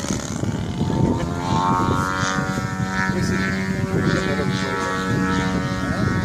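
Radio-controlled Yak 54 model aerobatic plane's engine and propeller droning overhead, the pitch rising a little about a second in and then holding steady.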